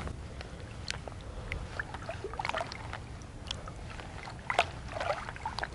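Shallow water being stirred by wading legs: scattered small splashes and drips, a little louder about four and a half seconds in and near the end.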